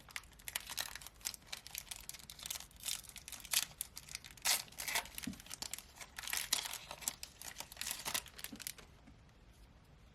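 Foil trading-card pack wrapper crinkling and tearing as it is ripped open, a dense run of sharp crackles that stops about nine seconds in.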